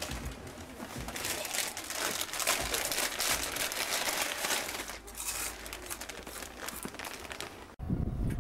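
Plastic food packet crinkling as it is handled, cutting off abruptly near the end.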